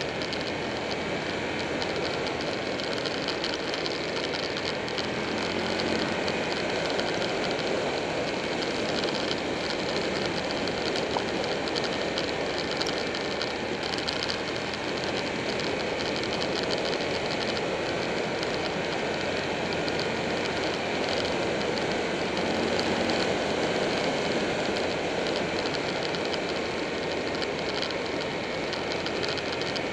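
Steady wind rush and road noise picked up by a motorcycle-mounted camera at speed, with the Buell 1125R's V-twin engine running underneath.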